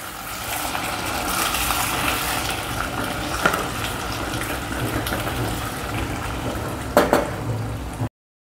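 Wooden spatula stirring thick spinach gravy in a steel kadai, with a steady sizzle from the hot ghee tempering just poured in and a couple of louder knocks against the pan. The sound cuts off abruptly near the end.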